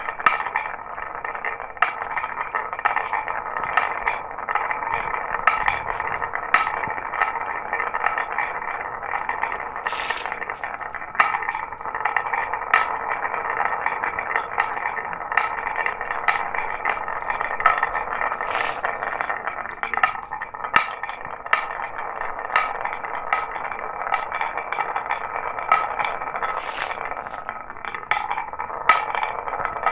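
Marbles rolling steadily down a marble run track, a continuous rattling rumble dotted with many sharp clicks as they knock and drop. Three short, brighter clinks stand out about ten, eighteen and twenty-seven seconds in.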